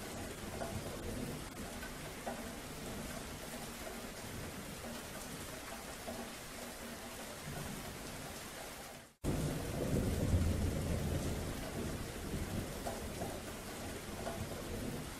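Rain falling steadily with low rumbles of thunder. About nine seconds in the sound cuts out for an instant, then comes back with a louder low rumble.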